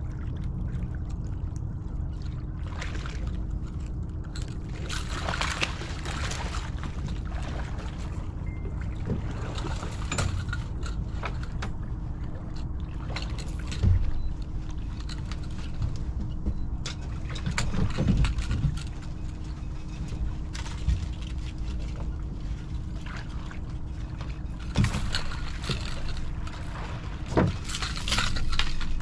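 Fishing boat on the water while a catfish is fought on a rod and netted: a steady low rumble and a constant hum, with scattered knocks and clatter from handling the rod and landing net, the busiest near the end.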